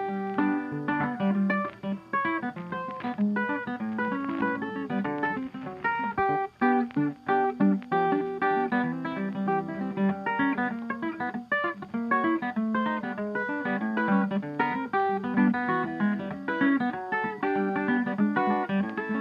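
Background music: a quick run of plucked guitar notes playing throughout.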